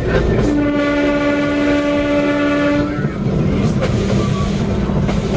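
Train horn sounding one long, steady blast that starts about half a second in and stops about three seconds in. Under it is the continuous running noise of the train moving along the rails.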